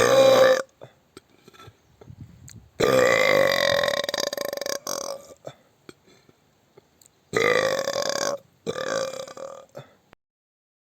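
Loud, deliberate burps: a short one at the start, a long drawn-out one of about two and a half seconds, then two more in quick succession near the end.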